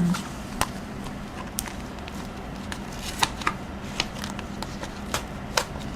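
Hands swapping a planner cover: scattered light clicks and rustles of the cover and book being handled.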